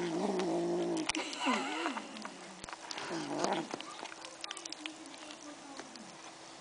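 Kitten growling over its food: a steady, even growl for about a second, then two wavering yowls that slide up and down in pitch, with a few sharp clicks. The growl of a kitten guarding its pieces of chicken.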